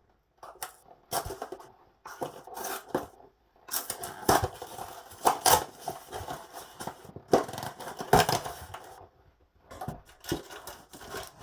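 Snack packaging being handled close to the microphone: irregular crinkling and rustling with sharp clicks and knocks, busiest through the middle, with short pauses.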